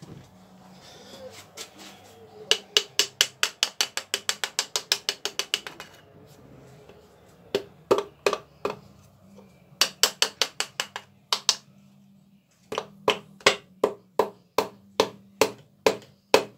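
Runs of sharp metallic clicks from hand tools working on an engine during piston and connecting-rod fitting. A fast run of about six clicks a second lasts a few seconds, two shorter runs follow, and slower, evenly spaced clicks come near the end.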